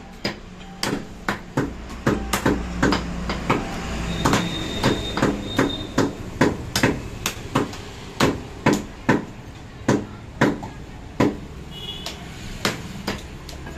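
Heavy cleaver chopping goat meat and rib bone on a round wooden log chopping block: a steady run of sharp chops, about two or three a second, with a short pause near the end.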